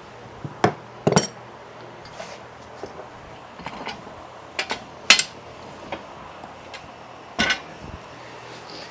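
Metal hand tools and steel parts clinking and knocking, with several separate sharp clinks spread a second or more apart, during work on the steering drag links.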